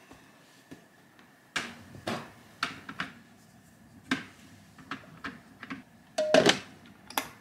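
Light knocks and clicks as eggs are set into the plastic rack of an electric egg cooker, then a louder clunk about six seconds in as its plastic lid goes on.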